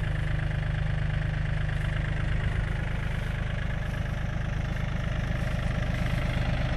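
Yanmar F235 compact tractor's diesel engine running steadily at an even speed.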